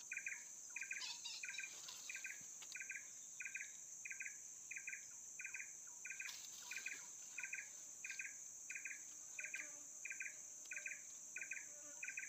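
Insects calling: one chirps evenly about twice a second over a steady, high-pitched insect drone.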